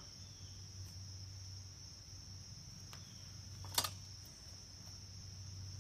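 Crickets or similar insects chirring in a steady high drone over a steady low hum, with a single sharp click a little before four seconds in.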